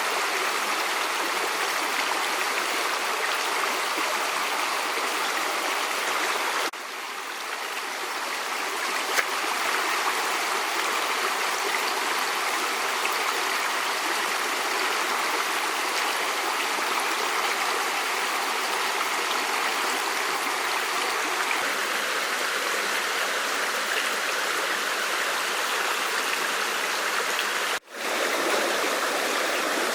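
Stream water rushing steadily. The sound drops and fades back up about a quarter of the way in, and cuts out for a moment near the end, where the recording is edited.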